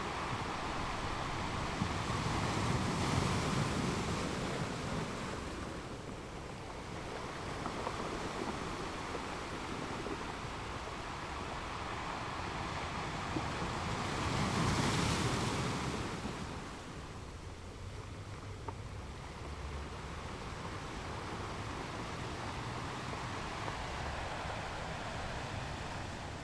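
Ocean waves washing onto a shore: a continuous surf hiss, with two waves swelling and breaking louder about three seconds in and again about fifteen seconds in, then easing off.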